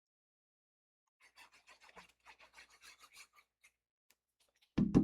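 Glue adhesive rubbed back and forth onto a cardstock strip, a quick run of short scratchy strokes lasting about two seconds. Near the end comes a sudden thump with a low ringing that lingers.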